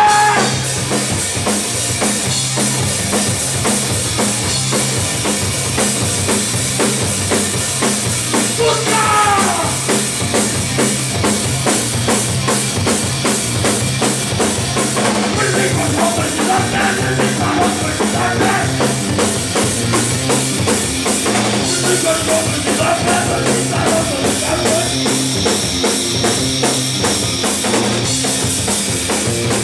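Loud live rock band playing: electric guitar and bass over a drum kit keeping a steady, driving beat.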